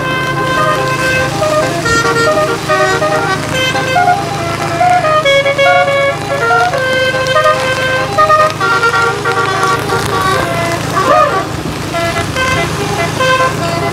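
Bus's Basuri multi-tone telolet horn playing a quick run of notes, several tones sounding together and changing every fraction of a second, over a steady low hum.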